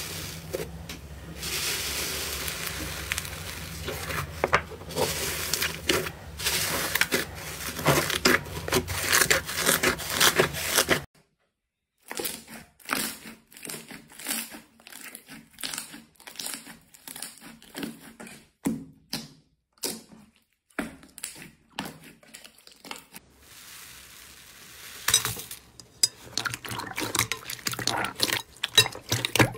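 Hand-played slime. First a dense crackling and crinkling as fingers press into a grainy rainbow cotton slime. After a brief silence, separate wet clicks and pops come from a glossy silver-purple slime being squeezed, turning denser near the end as a purple slime is stretched and poked in a glass bowl.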